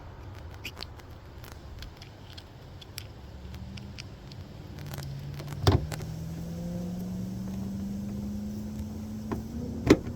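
A vehicle engine running, its pitch climbing slowly over several seconds from a few seconds in. Two sharp clicks stand out, one near the middle and one near the end.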